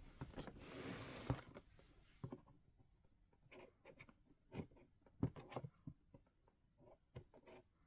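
Faint handling of a cardboard box and its packaging: a rustling scrape for about two seconds, then a few scattered light taps and clicks.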